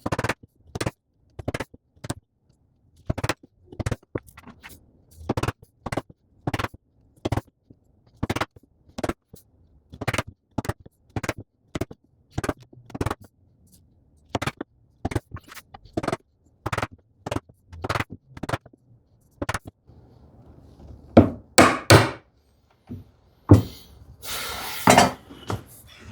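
A chisel being struck with a mallet to chop out dovetail waste: a steady series of sharp knocks, about one or two a second. Near the end come a few louder knocks and a brief scraping sound.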